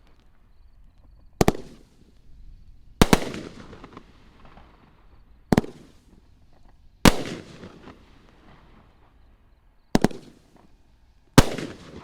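Fireworks cake firing aerial shells in volleys: three times, a sharp double report is followed about a second and a half later by a louder burst with a long crackling, echoing tail. The cake fires two shells at once.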